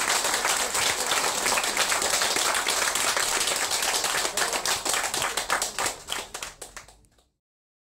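Audience applauding, many hands clapping irregularly, which thins out and stops about seven seconds in.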